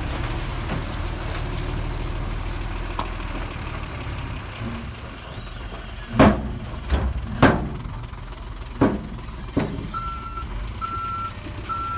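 Heavy earthmoving machinery engine running steadily, with five loud metal clanks from about halfway through. Near the end a reversing alarm beeps three times at an even pace.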